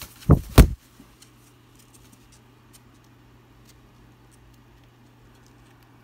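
Two loud thumps close together about half a second in, followed by faint scattered clicks.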